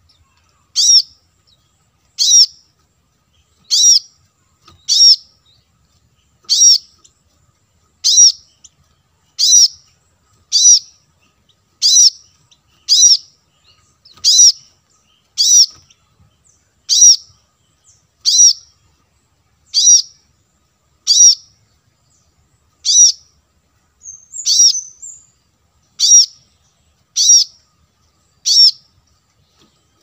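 Brown-throated sunbird calling: a single sharp, high chirp repeated about every second and a half, with a brief softer twitter about two-thirds of the way through.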